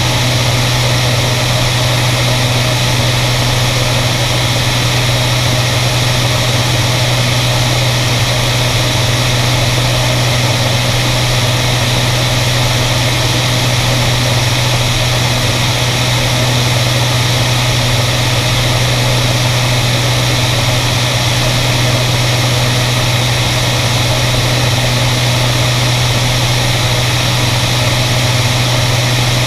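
Beriev Be-103 amphibian's twin piston engines and pusher propellers running at steady cruise, a constant low drone under heavy wind rush on a microphone mounted outside the aircraft.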